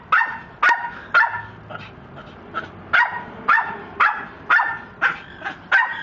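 Amazon parrot barking like a dog: a rapid run of short, sharp barks, about two a second.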